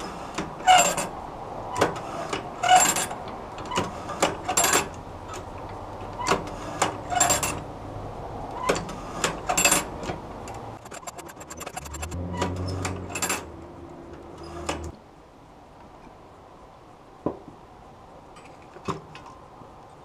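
Irregular metal clicks and clinks from parts and tools being handled on a sawmill-blade tooth setter's aluminium jig, as its blade rests are loosened, set and tightened. The clinks are frequent at first, with a low hum under them for a few seconds near the middle, then thin out to a few single clicks.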